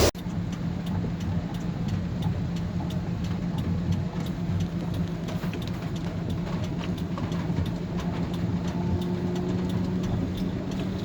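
A car engine running steadily, with a constant low hum and faint light clicking throughout.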